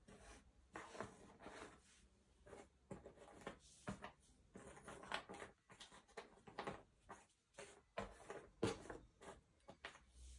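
Jigsaw puzzle pieces being handled and sifted on a table: faint, irregular small clicks and rustles.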